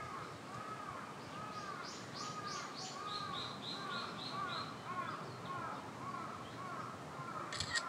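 Birds calling from the trees: a steady run of short, arched notes about twice a second, with quick runs of higher, thinner notes from about two to four and a half seconds in. A sharp click near the end.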